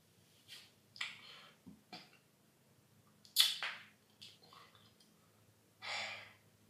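A person's short breathy huffs and sighs of exasperation: several faint ones and one sharper huff about three and a half seconds in.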